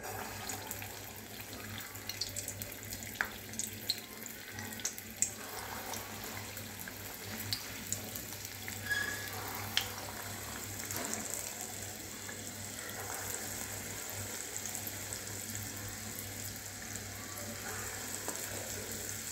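Urad dal vadas deep-frying in hot oil in a steel kadai: a steady sizzle with scattered crackles and pops, the sharpest ones in the first half as more spoonfuls of batter go into the oil.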